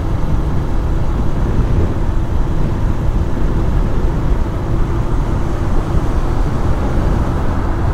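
Motorcycle riding at speed, around 60 km/h: steady wind rush over the front-mounted GoPro's microphone, with the bike's engine and road noise underneath.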